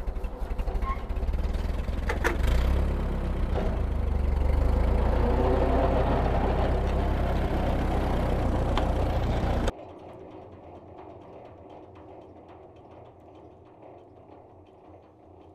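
Ford 8N tractor's four-cylinder engine running with the PTO engaged, spinning the Woods M5 rotary cutter's blades while the hydraulic three-point lift raises the cutter; the sound swells a couple of seconds in. It cuts off abruptly about two-thirds through, leaving a much quieter hum that fades away.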